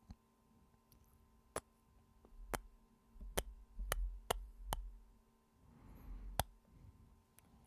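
Close-mic ASMR kisses: a run of about seven sharp, unevenly spaced lip smacks, several with a soft low thump of breath or contact beneath them.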